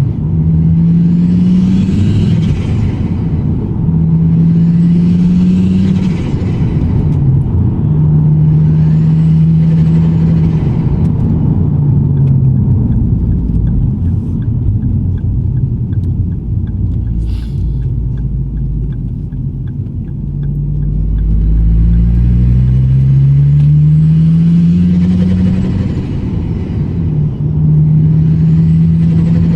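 Ford Focus ST with a hybrid turbo pulling at low revs: the engine note climbs and drops back again and again, and with each pull a high turbo whistle rises and falls away, a pattern that repeats every few seconds. A quieter stretch in the middle has less turbo sound.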